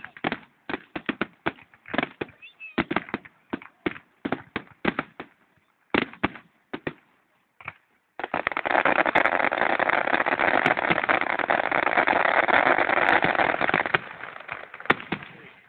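Fireworks going off: a string of irregular sharp bangs, then about eight seconds in a dense, continuous crackling barrage that fades away near the end.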